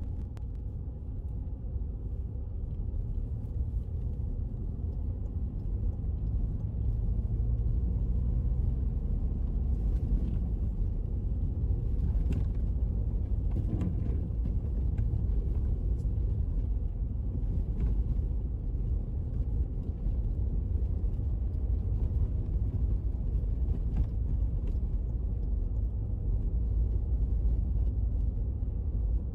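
Car driving on a snow-covered road, heard from inside: a steady low rumble of engine and tyres, with a few faint clicks scattered through it.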